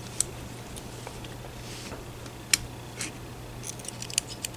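Small, sharp metallic clicks of lock-picking tools working in Smith & Wesson M&P handcuffs: a few scattered clicks, then a quick run of them near the end, over a steady low hum.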